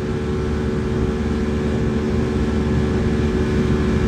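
Motorboat engine running steadily while the boat is under way, with a continuous rush of wind and water.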